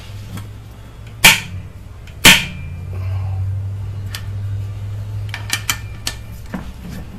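A Subaru EJ253 cylinder head bolt breaking loose under a long breaker bar, two loud sharp cracks about a second apart, followed by a few lighter clicks near the end.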